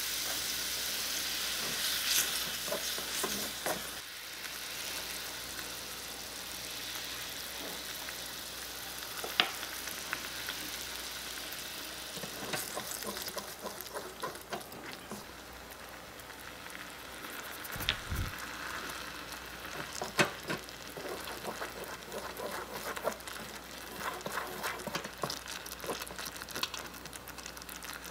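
Mushrooms and liquid sizzling and simmering in a miniature aluminium wok over a small gas flame. From about halfway on, a small wooden spatula stirs and scrapes against the pan, with scattered ticks and a few sharper knocks.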